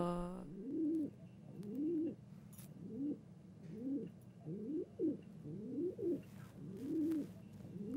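A dove cooing: a run of rising-and-falling coos, about one a second.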